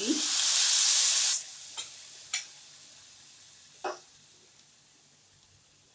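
A bowl of water poured into a hot pan of sautéed vegetables and oats, hissing loudly for about a second and a half, then dying away into a fading sizzle. A couple of light clicks come through as it fades.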